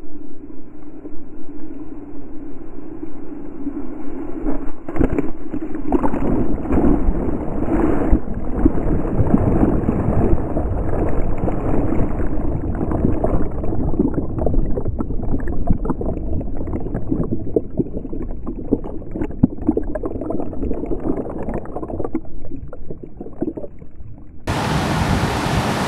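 Muffled rushing and gurgling of churning sea water in the surf, heard from a camera down in the water, growing louder about five seconds in. Near the end, music starts abruptly.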